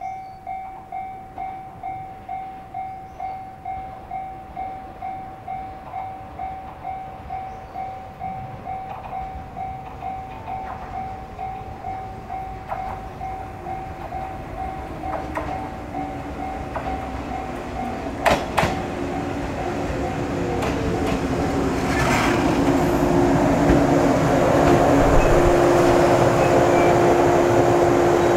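A warning bell rings about twice a second and fades as a Joshin Electric Railway 700 series electric train, with MT54 motors and resistor control, comes in and grows steadily louder. A falling tone runs under the approach, and sharp clicks come about 18 seconds in. Near the end the train's steady hum and running noise are loudest.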